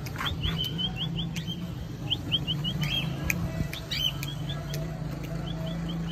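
Parrot squawking: runs of three to five short, shrill calls repeated again and again, with a few louder screeches among them, over a steady low hum.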